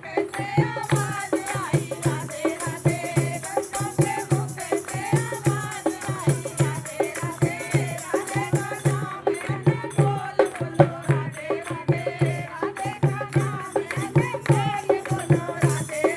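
Devotional bhajan music: a voice singing a flowing melody over a steady, fast beat of hand percussion and a low bass drone.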